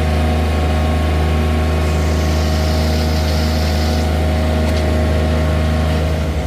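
John Deere 1023E compact tractor's three-cylinder diesel engine running steadily, with a hiss for about two seconds in the middle.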